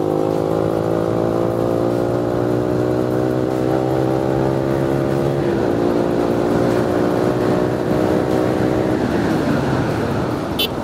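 Yamaha R15 V3's 155 cc single-cylinder engine through a loud Akrapovic exhaust, ridden hard. The note climbs steadily for about five seconds, breaks briefly at an upshift, climbs again, then drops away near the end as the throttle closes.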